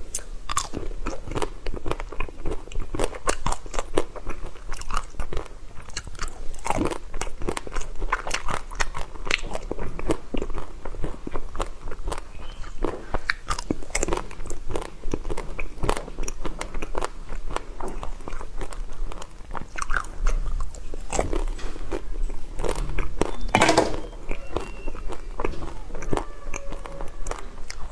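Close-miked mukbang eating: bites into frozen green white-chocolate ice cream cubes, then crunchy chewing, with many sharp crackles in quick succession throughout.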